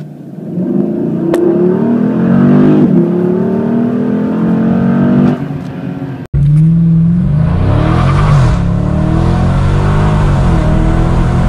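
Dodge 6.4-litre Hemi V8s at full throttle on 0–60 mph runs, heard from inside the cabin. The first is a 2012 Charger SRT8 with a 5-speed automatic: its engine note climbs and drops back at upshifts about three and five seconds in. After a sudden cut about six seconds in comes a 2020 Challenger Scat Pack with an 8-speed automatic, climbing and dropping back through quicker upshifts.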